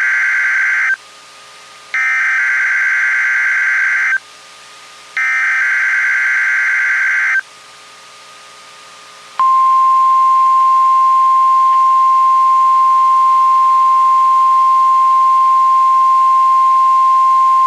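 NOAA Weather Radio's SAME digital header, sent three times as harsh screeching data bursts about two seconds each with a second of static between. Then, about nine seconds in, the steady single-pitch 1050 Hz warning alarm tone starts and holds. This is the weekly test of the warning alarm signals.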